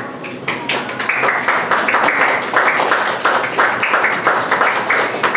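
An audience applauding, a dense, steady patter of hand claps.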